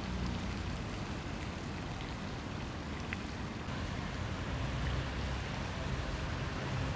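Wind buffeting the camcorder's microphone: an uneven low rumble over a steady hiss, with a few faint ticks.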